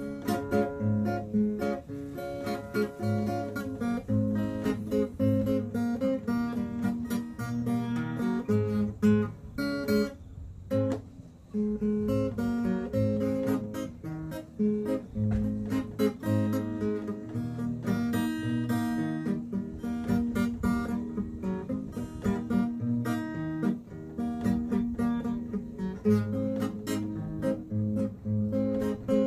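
Acoustic guitar playing an instrumental, with picked and strummed chords over a repeating bass line; it dips briefly about ten seconds in.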